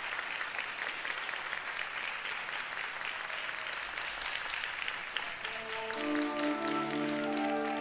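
Audience applause that dies away about five seconds in, as a sustained musical chord of several held notes fades in and carries on.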